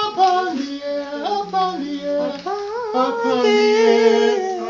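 Voices singing held notes of a slow melody, a lower and a higher part sounding together and moving from note to note.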